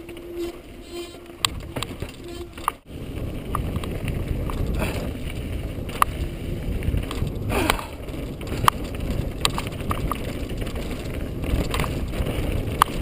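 A mountain bike descending a rocky dirt trail, heard from the rider's action camera: wind and tyre rumble with scattered sharp clicks and rattles as the bike runs over rocks. The rumble grows louder after a brief dropout about three seconds in.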